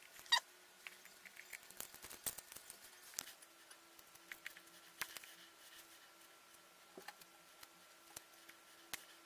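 Faint scattered clicks, scratches and rustling as hands press a plastic electrical back box into a wall opening and work stiff wires through it, with one louder short sound about half a second in.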